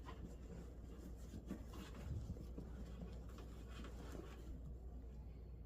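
Faint rustling and scratching of a heated-seat pad being worked up inside a seat's upholstery cover, in a few scattered soft scrapes over a low steady hum.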